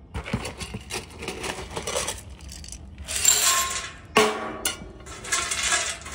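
Wood pellets poured in spells from a metal can into a steel fire pit, rattling onto the pellet bed, with a sharp knock a little after four seconds in.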